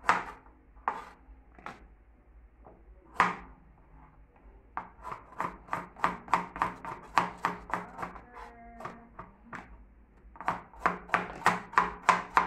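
Chef's knife chopping carrots on a plastic cutting board. A few spaced strokes come first, then quick runs of chops at about five a second, with a short pause partway through.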